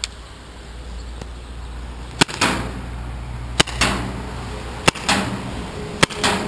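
Tippmann TPX paintball pistol, powered by a 12-gram CO2 cartridge, firing four single shots a little over a second apart. Each shot is a sharp crack followed a fraction of a second later by a softer sound.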